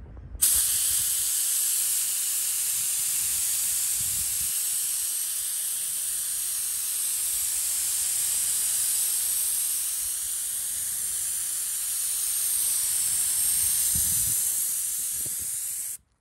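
Air-propelled HVLP spray gun, set to 4.5 bar, hissing steadily as it blows a fine mist of coating. The hiss starts suddenly as the trigger is pressed and cuts off abruptly near the end.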